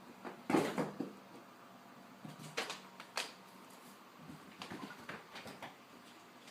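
Scattered light knocks and rustles, the loudest about half a second in, with sharp clicks around two and a half and three seconds and a cluster of small knocks near five seconds.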